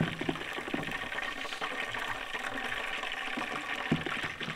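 Battered bluegill fillets sizzling and crackling in hot oil in an electric deep fryer as they turn crispy. There is a single clank near the end as the wire frying basket is lifted.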